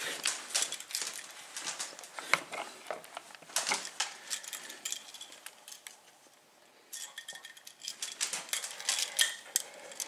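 Small hard clicks and light metallic clatters as a new Decora wall switch and a screwdriver are handled, with a short quiet pause a little past halfway.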